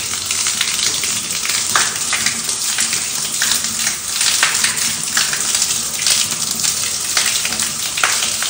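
Water pouring steadily from a carved stone wall spout into a stone basin: continuous splashing with many small drips and trickles.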